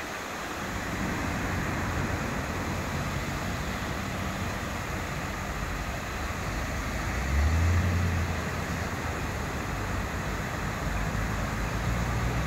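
Fountain with a tall central jet and a ring of arcing jets, its water falling into the basin in a steady splashing hiss. Under it runs a low rumble that swells briefly about two thirds of the way through.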